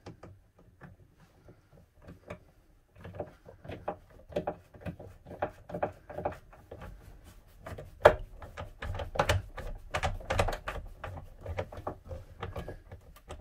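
Hand screwdriver driving a wood screw through a gas-strut bracket into a cabinet door panel: a run of irregular small clicks and knocks as the blade turns and regrips in the screw head. The clicking thickens about three seconds in, with the sharpest knock near the middle.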